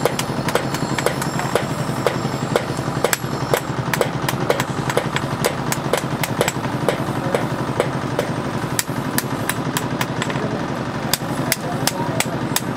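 Blacksmith's hammer striking steel on an anvil, roughly three blows a second at an uneven pace, over the steady running of a machine.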